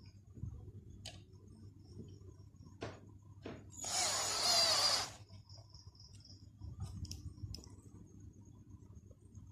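Cordless battery drill driving a screw into a socket wall box: one short run of just over a second near the middle, with a few light clicks and knocks before it.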